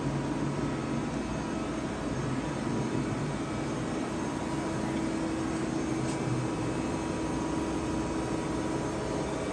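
Steady mechanical hum of a powered-up DMG Gildemeister CTX 510 eco CNC lathe, with a tone that strengthens about four seconds in and eases off near the end, as its spindle runs.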